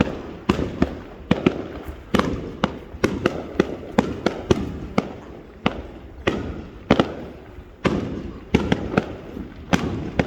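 Fireworks display in full swing: a rapid, irregular series of sharp bangs, two or three a second, each trailing off in a rumbling echo.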